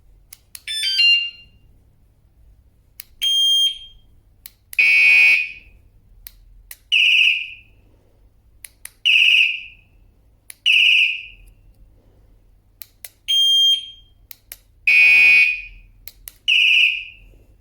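Wireless bike alarm sounding its siren: a quick rising run of tones, then a string of loud, shrill electronic beeps about half a second long, roughly every two seconds, in a repeating pattern of differing tones.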